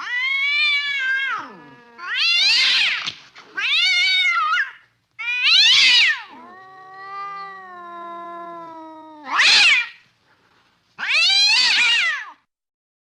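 Domestic cat meowing repeatedly: about six loud, drawn-out meows with short gaps between them, and after the fourth a longer, lower, wavering call.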